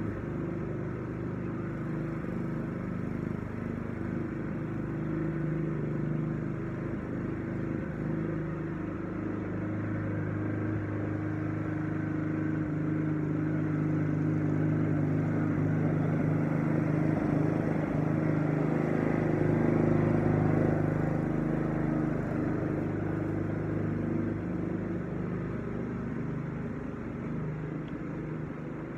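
Walk-behind gas lawn mower engine running steadily while mowing. It grows louder toward the middle as the mower passes close, then fades slightly as it moves away.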